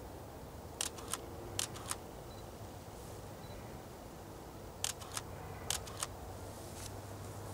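Canon EOS-1D Mark III DSLR shutter firing four times, each release a sharp double click about a third of a second apart: two releases about a second in, two more about five seconds in.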